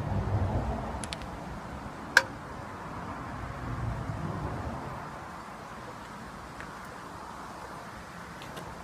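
Outdoor background noise with a low rumble that eases off after about five seconds, and one sharp click about two seconds in. No engine is running yet.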